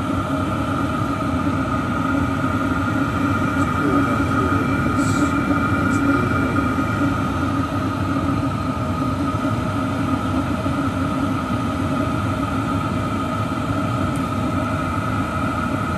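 Chinese diesel air heater (Webasto clone) running steadily, its combustion blower and hot-air fan giving a constant whir with a steady tone in it.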